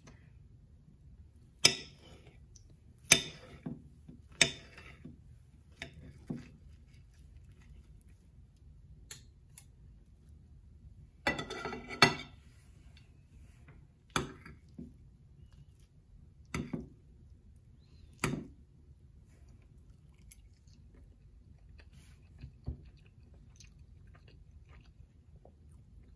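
Knife and fork scraping and clicking on a plate as an omelette is cut and forked up, about a dozen sharp strokes with a longer run of them near the middle. Close-miked chewing in between.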